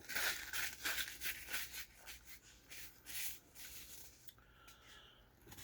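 Paper and packaging rustling and crinkling in handling: soft irregular crackles that are busiest in the first couple of seconds and thin out, with a brief faint squeak a little after four seconds.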